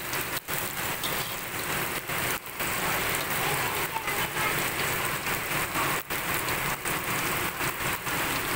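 Chopped spice paste and lemongrass sizzling steadily in hot oil in a wok as it is sautéed.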